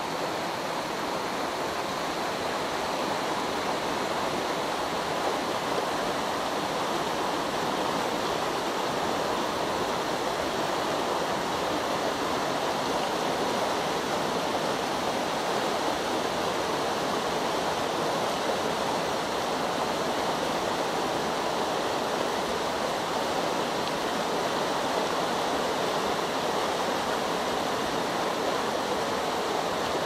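Mountain stream water rushing steadily over rocks and small cascades, cutting off abruptly at the end.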